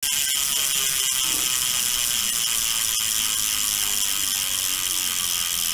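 A steady, dense mechanical ratcheting buzz that holds at an even level throughout.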